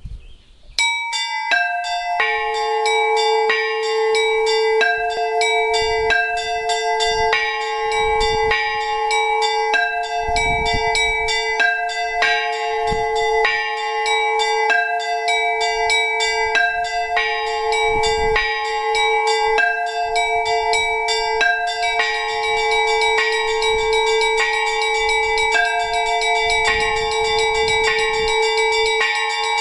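Orthodox church bells rung by hand in a trezvon, the ringing that calls to a memorial service. Several small bells are struck in quick repeating patterns over a larger bell's steady ringing tone, starting about a second in.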